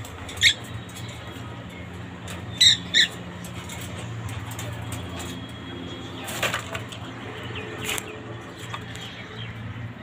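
A pet parakeet gives three short, sharp squawks in the first three seconds, then flutters and rustles in its cage with a few wing flaps. A steady low hum runs underneath.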